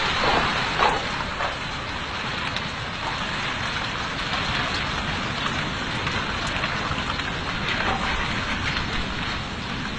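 Rocky debris flow sliding across a road: a steady rushing noise of moving rock and gravel, with faint scattered clicks of stones knocking.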